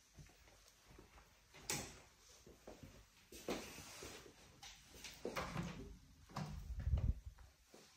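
Irregular footsteps and knocks as someone walks a wooden hallway. Near the end an interior door's lever handle is pressed and the door is pushed open, the loudest stretch.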